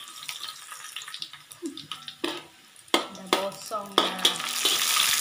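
Sliced onions frying in hot oil in a wok, sizzling, with a metal spatula knocking and scraping against the pan several times as they are stirred. The sizzle grows louder near the end.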